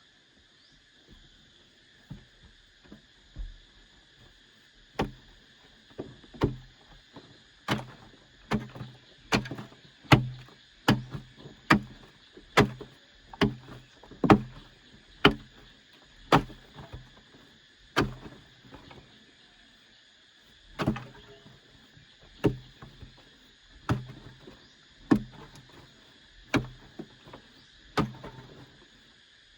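A hand tool struck again and again into earth, about one dull blow a second, with a short pause about two-thirds of the way through: digging out the pit for an underground shelter. A steady high-pitched drone runs underneath.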